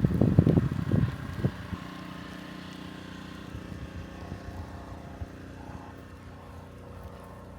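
Strong wind gusts buffeting the microphone in a low rumble for the first second and a half, then a steady low mechanical hum, like an engine running, for the rest.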